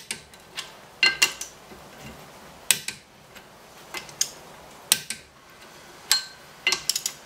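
Hand torque wrench clicking on the brake rotor-to-hub bolts of a Ford Festiva front hub, set to about 33 inch-pounds, as the bolts are checked in a circle. About a dozen sharp metallic clicks come at irregular intervals, some alone and some in quick pairs or threes.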